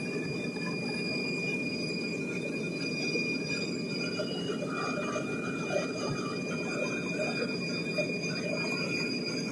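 Ilyushin Il-76's four turbofan engines heard from inside the cabin during the climb after takeoff: a steady deep rumble with a steady high whine on top.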